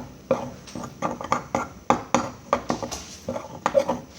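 A utensil stirring a flour-and-water mixture in a bowl, with repeated irregular clinks and knocks against the bowl's side, several a second.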